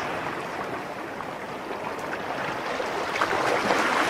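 Steady crowd noise in a basketball arena, a murmur swelling a little toward the end.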